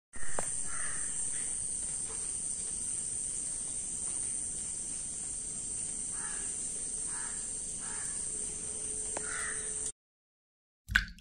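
Crows cawing several times over a steady high hiss. The sound cuts off suddenly near the end.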